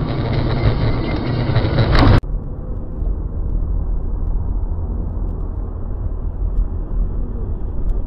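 Vehicle road and engine noise picked up by dashcams. A dense rushing noise swells to a loud peak about two seconds in, with a sharp click, then cuts abruptly to a steady low road rumble.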